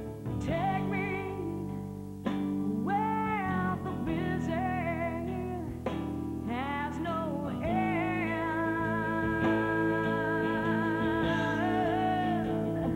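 A song with a sung melody over guitar accompaniment.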